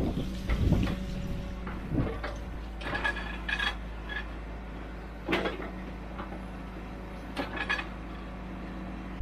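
Earthmoving machine's diesel engine running steadily while its steel bucket or blade strikes and scrapes rocky ground, giving several sharp metal clanks, some of them ringing.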